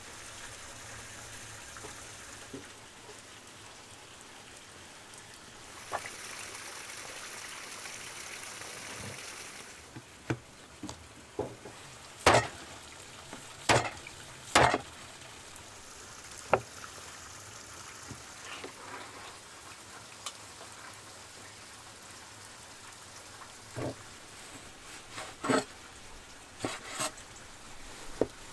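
Broad-bladed kitchen knife cutting raw beef ribs into steaks on a wooden cutting board: scattered sharp knocks of the blade striking the board, loudest about twelve to fifteen seconds in, over a steady background hiss.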